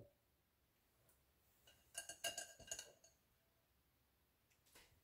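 Metal mesh strainer clinking against a glass bowl as it is handled and lifted out: a cluster of light ringing clinks about two seconds in and a few more near the end.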